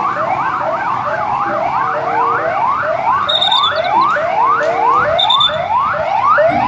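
Police car siren yelping: quick rising sweeps about twice a second. A second siren overlaps it for the first couple of seconds.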